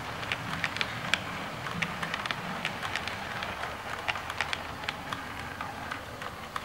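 OO gauge model train coaches rolling over the track: a steady rolling rumble with irregular clicks as the wheels cross rail joints and pointwork, easing off near the end as the last coach passes.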